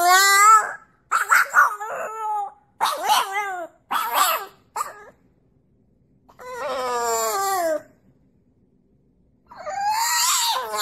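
French bulldog puppy howling and whining in a string of short pitched yowls. A longer falling howl comes about six and a half seconds in, and another howl starts near the end.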